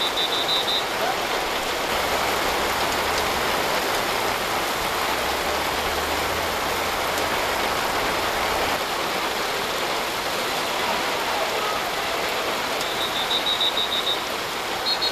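Steady heavy rain falling outdoors, an even hiss with no letup, with a low hum underneath for several seconds in the first half.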